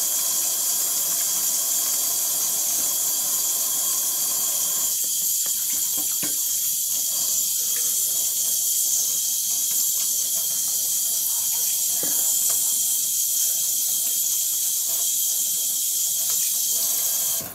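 Kitchen faucet running steadily into the sink while hands are washed, the water shut off abruptly near the end.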